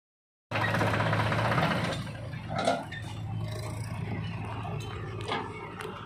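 Diesel engines of a JCB 3DX backhoe loader and a Sonalika tractor running steadily. There is a loud, noisy stretch for the first second and a half while the backhoe bucket hangs over the trolley unloading mud. A few sharp knocks follow.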